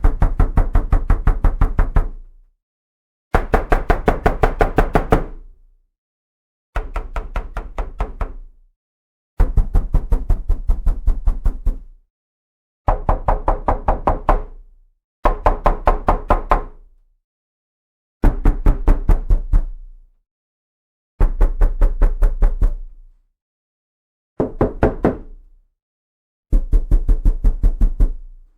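Knuckles rapping fast on a wooden door, about five knocks a second, in ten bursts of roughly two seconds each separated by short silent pauses.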